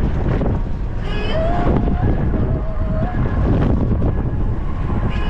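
Safari vehicle driving, a steady low engine and road rumble with wind buffeting the microphone.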